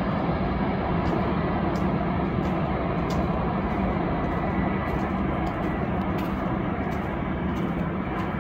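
Steady roar of a jet airliner's engines during its landing rollout.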